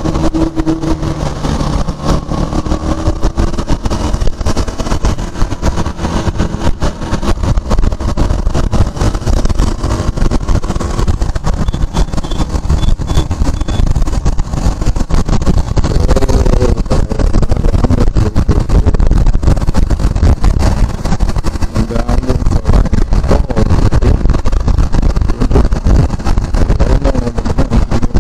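KTM Duke 390 motorcycle riding at road speed: engine noise buried under heavy wind rush on the camera's microphone, growing louder about halfway through.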